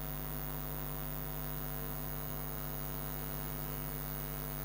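Steady low electrical mains hum with a string of higher overtones, unchanging throughout.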